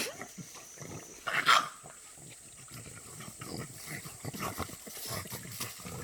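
A dog making sounds, with one short loud burst about a second and a half in.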